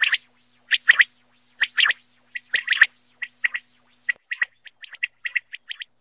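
Common quail calling: sharp, repeated 'whit wit-wit' phrases about once a second, then a run of quicker, softer notes in the second half.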